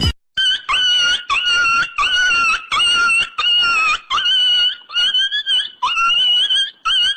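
A comedy sound effect of a high-pitched squealing cry, repeated about a dozen times in quick succession. The calls come roughly two a second, and each one swoops up in pitch as it starts.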